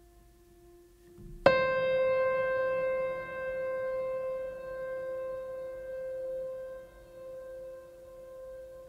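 Background music: a single note struck sharply about a second and a half in, ringing on and slowly fading, over a faint lower held tone.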